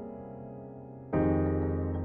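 Background music played on a keyboard: a held chord fades away, and a new chord is struck about a second in.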